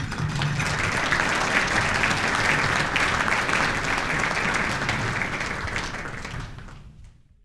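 Audience applauding, steady at first and dying away near the end.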